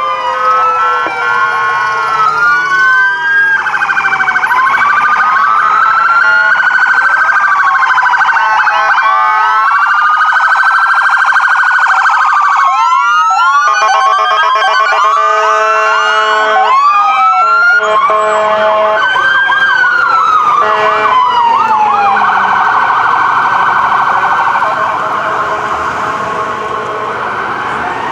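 Several emergency-vehicle electronic sirens sounding at once, their slow rising-and-falling wails and fast yelps overlapping, mixed with steady blaring tones. The sound eases a little near the end.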